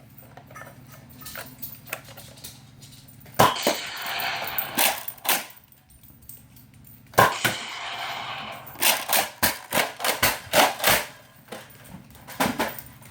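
Two loud gunshot bangs, each trailed by about a second of hiss, then a quick string of sharp cracks: edited-in gunshot effects laid over Nerf blaster shots.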